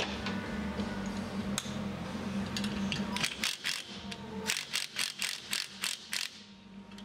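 A cordless impact wrench hammering in a run of short bursts about four a second, working a nut on a driveline clutch. It starts a little after a steady low hum.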